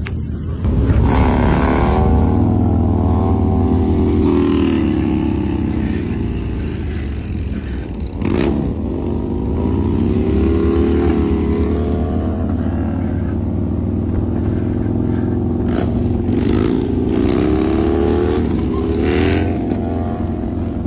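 Motorcycle engine running under way, its revs rising and falling again and again. A sudden sharp noise comes about eight seconds in, and shorter ones near the end.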